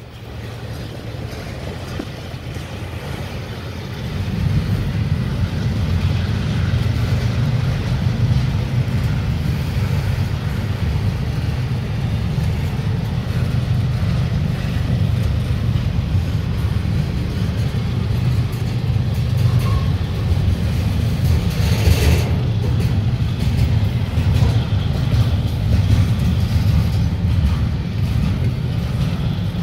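Double-stack container well cars of a CSX intermodal freight train rolling past, a steady low rumble of wheels on rail that grows louder about four seconds in, with one brief burst of noise about 22 seconds in.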